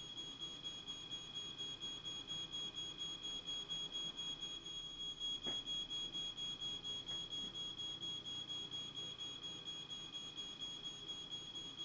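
Ground-floor smoke alarm sounding a steady, high-pitched tone, set off by smoke from a fire building up at the ceiling. A faint click comes about five and a half seconds in.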